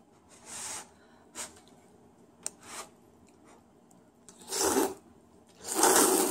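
A person slurping instant ramyun noodles off chopsticks: a few soft slurps and small mouth clicks, then two long, loud slurps, the second near the end.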